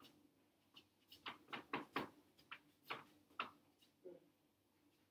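A run of about a dozen short, irregular soft clicks and ticks, bunched together from about a second in until shortly after three seconds, over a quiet room.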